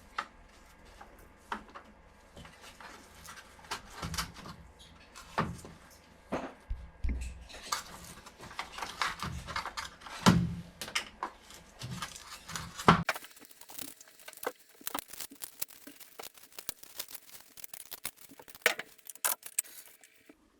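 Irregular clicks, knocks and light rattles of hard plastic parts being handled on a Bissell Powerforce vacuum's underside as the brush roll and broken belt are taken out.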